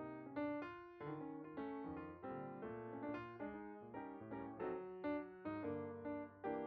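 Background piano music, notes and chords struck and left to ring, about two a second.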